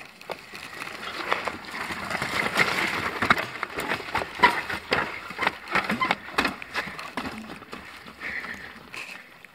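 Mountain bike rolling over a wet, rocky trail past the camera: tyres clattering and knocking on stones with rattling from the bike, loudest as it passes close in the middle.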